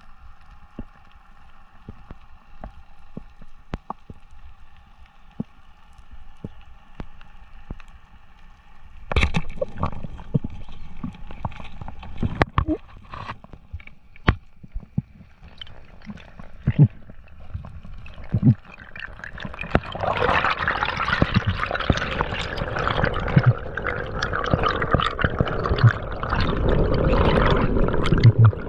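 Water noise heard underwater through a camera housing while a freediver swims: at first a faint steady hum of several tones with scattered clicks, then from about nine seconds in water rushing past the housing, swelling into a loud continuous rush in the last third.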